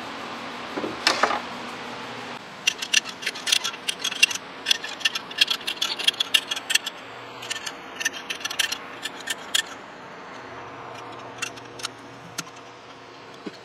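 A mallet knocks on a concrete anchor bolt set in the floor a couple of times. Then a come-along's ratchet clicks in quick runs as it is worked to pull a heavy surface grinder, the clicking thinning to scattered clicks later on.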